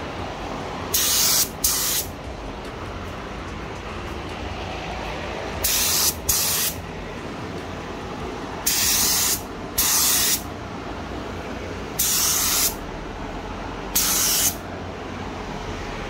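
A paint spray gun fires in eight short hissing bursts, each about half a second long, mostly in pairs spaced a few seconds apart. Under them runs a steady low background noise.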